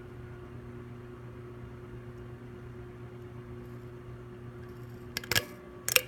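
Dayton 3C691 commercial ceiling fan's cast-aluminum motor running with a steady low hum and layered overtones. Near the end, two short loud knocks about half a second apart.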